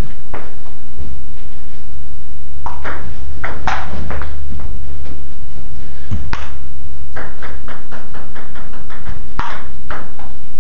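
Table tennis ball clicking off the paddles and the table in quick runs of sharp ticks, with a gap partway through before play picks up again. A steady low hum runs underneath.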